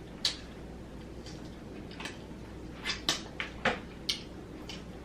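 A person eating fried chicken wings close to the microphone: a string of short, irregular mouth smacks and chewing clicks, most of them bunched in the middle.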